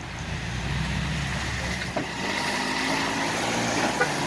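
Off-road vehicle's engine running, then revving up under load from about two seconds in as it works at the lip of the river bank, with a sharp knock just before the revs rise.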